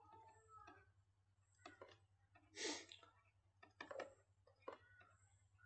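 Near silence, broken by a few faint scattered clicks and taps of a stylus writing on a tablet, with one slightly longer soft rustle near the middle.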